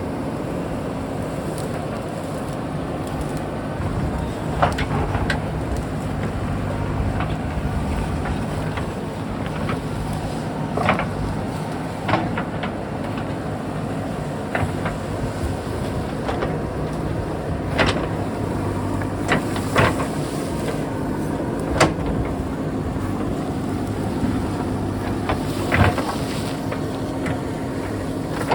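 JCB backhoe loader's diesel engine running steadily, with a sharp knock every few seconds, about seven in all.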